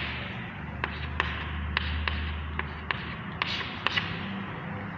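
Chalk writing on a chalkboard: a string of short, sharp, irregular taps with light scratching, over a steady background hiss.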